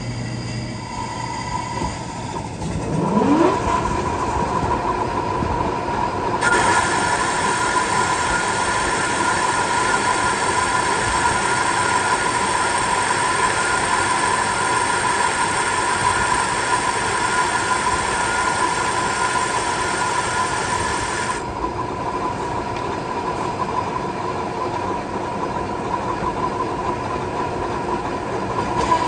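American Pacemaker lathe spinning up with a rising whine about three seconds in, then running with a steady gear whine. From about six to twenty-one seconds a boring bar takes the finishing cut in the bore, adding a bright hissing cutting noise that stops abruptly.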